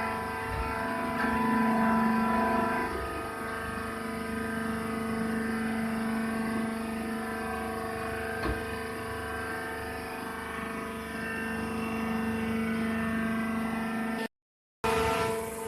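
Baler machine running with a steady mechanical hum built on a constant low tone. It is a little louder for the first three seconds, has a single click about eight seconds in, and the sound cuts out briefly near the end.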